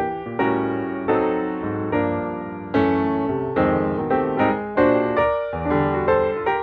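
Piano music: chords struck every half second to a second, each dying away before the next.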